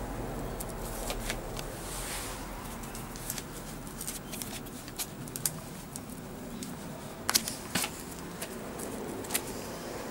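Sneakers being pulled on by hand: scattered soft clicks and scuffs of shoe and skin, the two loudest about seven and a half seconds in, over a steady outdoor background hiss.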